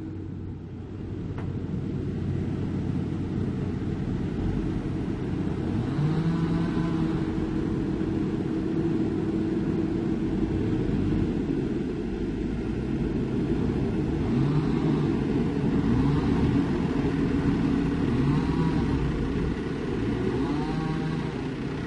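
Heavy diesel engine of earthmoving machinery running under load, its revs rising and falling about five times.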